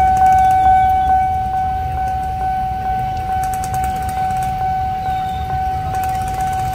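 Locomotive horn held in one long, steady single-pitched blast, fading slightly, over a low rumble. It sounds from the CC203 diesel locomotive approaching railfans standing on the tracks.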